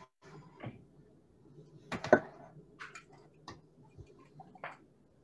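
A few light, irregular clicks and knocks of kitchen utensils and dishes on a counter, the loudest about two seconds in.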